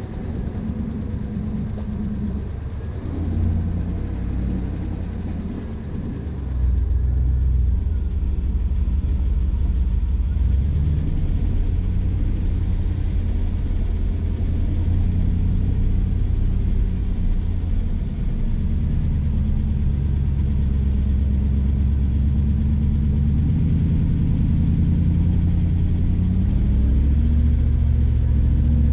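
Jeep Grand Cherokee engine and drivetrain running at low speed while crawling along a dirt trail: a steady low rumble whose pitch shifts up and down with the throttle. It gets distinctly louder about six seconds in.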